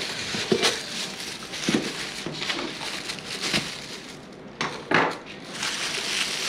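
Thin plastic bag crinkling as a boxed bottle inside it is handled, with several knocks of the box against a wooden table, the loudest about five seconds in.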